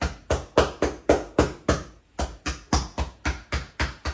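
Quick, even hand pats, about three or four a second, with a short break about two seconds in.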